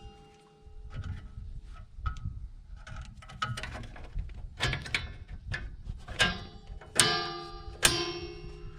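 Steel drum-brake hardware and hand tools clinking and clanking: a string of sharp metallic knocks, a few of them ringing on briefly.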